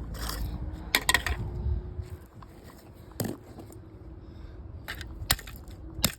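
A plastic alarm clock being pulled apart by hand: a handful of sharp plastic cracks and snaps, the loudest cluster about a second in and single snaps near three, five and six seconds, over low rumbling from handling.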